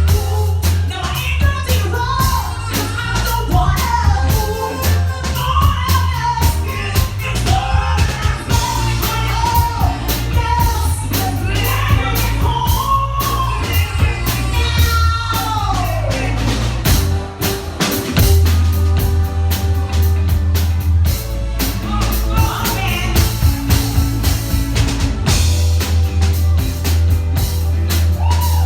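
Live R&B performance: a female singer sings over a soul band of bass, drums and keys, her line ending in a long falling slide about halfway through. The band then carries on playing, with only a brief sung phrase later.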